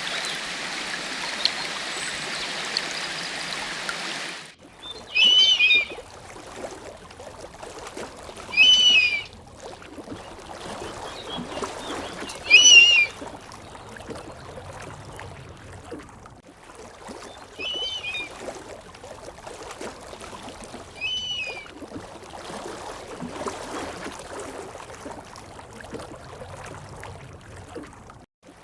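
Rushing stream water for about the first four seconds, with a few faint chirps, cuts off suddenly. A quieter forest background follows, with an animal's short, loud calls repeated five times, a few seconds apart.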